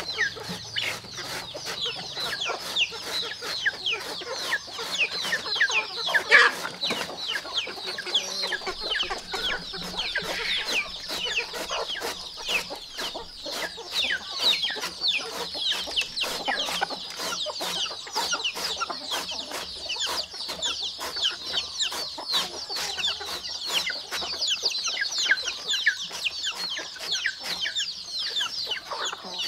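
A brood of chicks peeping nonstop, many short, high, falling peeps overlapping, with one louder call about six seconds in.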